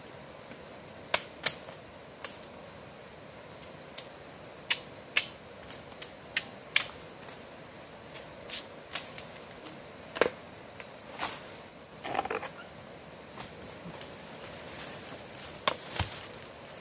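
Machete chopping into a standing wooden pole: sharp, irregular hacks, about one a second, some coming in quick pairs.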